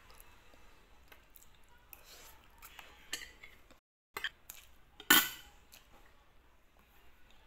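A metal spoon and fork clinking and scraping on a plate of rice and chicken as she eats, with scattered clicks and the loudest clatter about five seconds in.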